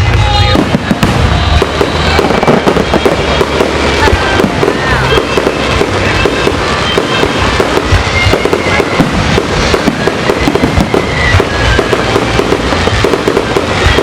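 Fireworks going off in a dense, continuous barrage: rapid overlapping bangs and crackles with no pause.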